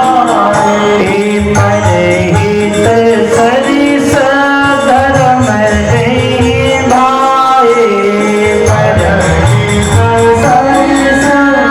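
Devotional Hindu song (bhajan) sung to a steady rhythmic percussion accompaniment.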